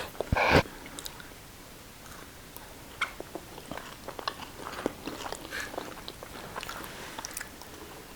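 Close-up eating sounds of fries, sausage and salad being chewed, with scattered small clicks and crunches. There is one louder noisy burst about half a second in.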